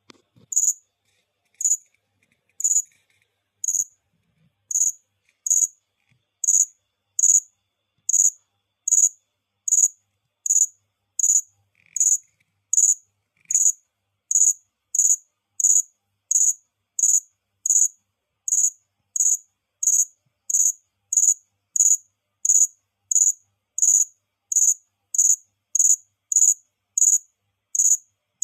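Cricket chirping: short, high-pitched chirps repeated at a steady pace of about three every two seconds, spaced more widely and unevenly for the first few seconds.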